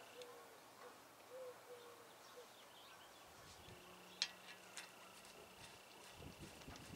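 Near silence with faint outdoor background: a few short, low hooting bird notes in the first couple of seconds, then one sharp metallic click about four seconds in as a stud installer tool is handled on a wheel hub's stud, and a few faint knocks near the end.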